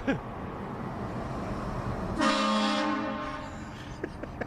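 One short blast of a train horn, several steady notes sounding together, about two seconds in and lasting under a second. Right at the start there is a brief sound that falls in pitch.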